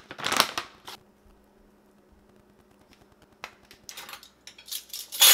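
A plastic pouch of dishwasher tablets being pulled open with a brief crinkle. After a short lull come light metal clinks and rattles as utensils and measuring spoons go into the dishwasher rack, getting busier and loudest near the end.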